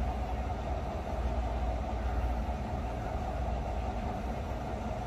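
Steady low mechanical rumble and hum, even throughout, with no distinct clicks or knocks.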